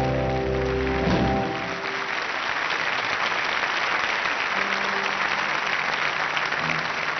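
A rock band's held final chord ends about a second and a half in, and an audience applauds for the rest.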